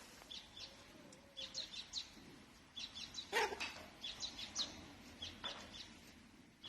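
Small birds chirping in short clusters of two to four high notes, again and again. About three and a half seconds in there is one louder, harsher sound.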